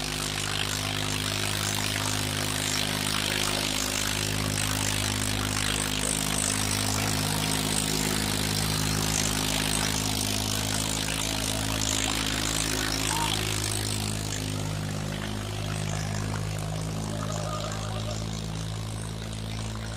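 Farmtrac 60 T20 tractor's diesel engine running steadily at high revs under heavy load, dragging a weighted harrow.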